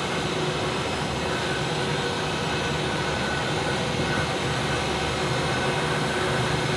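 Steady jet engine and airflow noise heard inside the cabin of a Super Air Jet Airbus A320, an even roar with faint steady tones over it. It swells slightly near the end.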